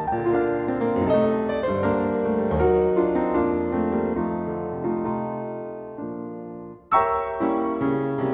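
Piano music: a flowing run of notes that fades, breaks off briefly near the end, then comes back with louder chords.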